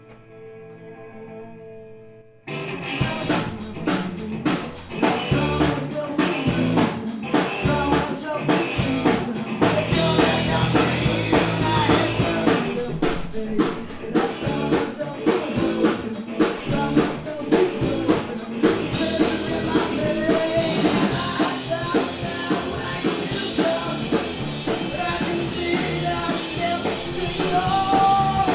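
Live punk rock band of electric guitar, bass guitar and drum kit crashing into a song about two and a half seconds in, after a moment of quiet held notes. A woman sings lead over the band in the later part.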